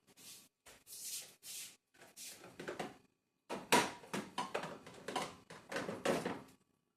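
Rustling and light knocking of food packaging and containers being handled and moved about in a fridge, in a string of short bursts with a brief pause around the middle.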